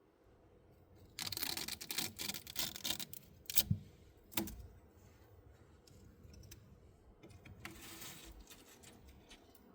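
Crinkly rustling of something being handled, followed by two sharp clicks or knocks, then a softer rustle near the end.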